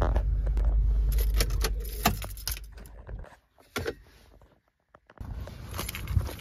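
Car interior with a steady low hum of the car running, fading out after about two seconds, with keys jangling and clicking throughout.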